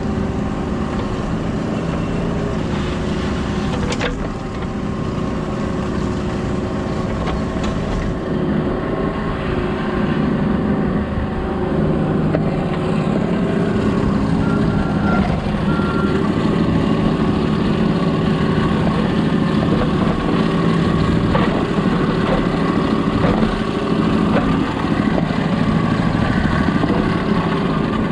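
Diesel engine of heavy work equipment running steadily, with a sharp knock about four seconds in.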